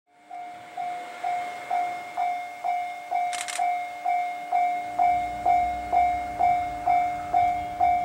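Railway level crossing warning bell ringing steadily, about two strikes a second, as a train approaches. From about five seconds in, the low rumble of the approaching diesel railcar builds beneath it.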